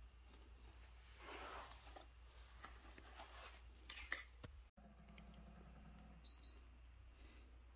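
A single short high-pitched beep about six seconds in, over faint room noise.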